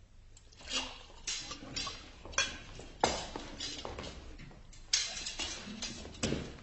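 Irregular light clicks and knocks of cups and tableware being handled as wine is poured.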